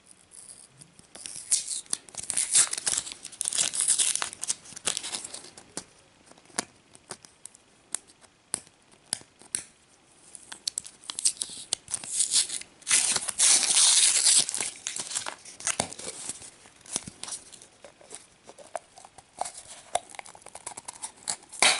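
Printed wrapper sleeve being peeled and torn off a plastic capsule toy egg: crinkling and tearing in bursts, loudest about two seconds in and again about thirteen seconds in, with small clicks and rustles between.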